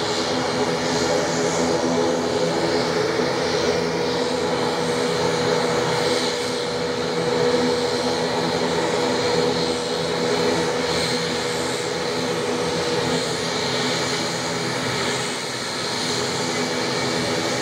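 Turboprop airliner engines running steadily on the ramp: a constant hum and whine, with a higher steady tone that holds from about three seconds in until about thirteen seconds in.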